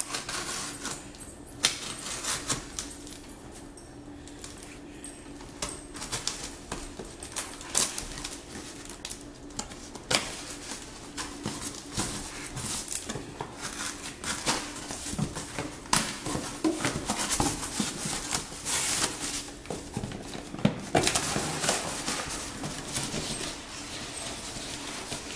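Knife slitting the packing tape on a cardboard shipping box, then the cardboard flaps being pried open and handled. Many sharp crackles, scrapes and clicks, bunched in quick clusters.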